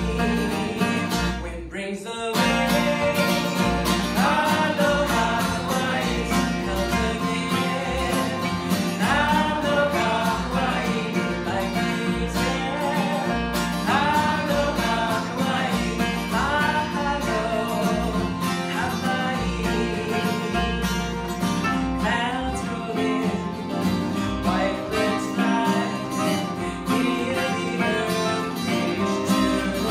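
Country-folk song played live on two acoustic guitars, strummed and picked, with a woman singing lead over them. The music dips briefly about two seconds in, then carries on.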